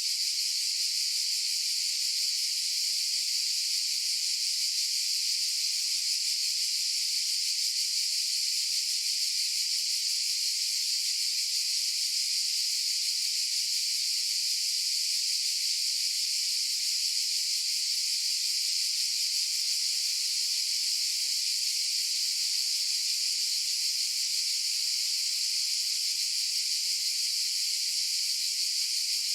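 Cicadas buzzing in a steady chorus, a continuous high-pitched drone that holds at an even level without pulsing or breaks.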